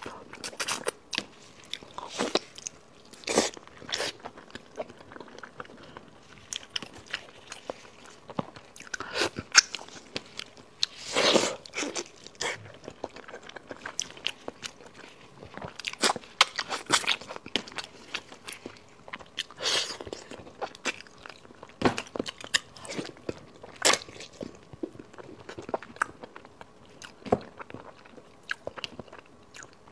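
Close-miked chewing and biting of braised pig's trotters: an irregular run of sharp mouth clicks and smacks, with a louder cluster about eleven seconds in.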